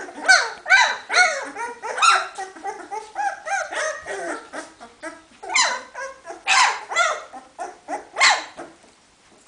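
Two-week-old puppies squealing and whining: many short, high calls that bend up and down in pitch and overlap in bursts, easing off near the end. These are the hungry cries of newborn puppies crawling in search of their mother to nurse.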